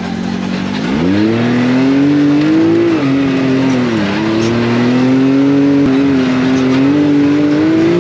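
Can-Am Maverick X3 Turbo side-by-side's engine pulling under throttle. Its pitch climbs about a second in, dips briefly twice around three and four seconds in, then holds higher.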